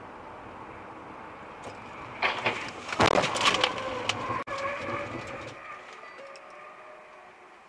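Steady road noise from inside a moving car, then about two seconds in a sudden car crash: a run of loud bangs and crunches, loudest about a second later, as a sedan collides alongside. A squealing tone follows and fades out as the car slides sideways to a stop.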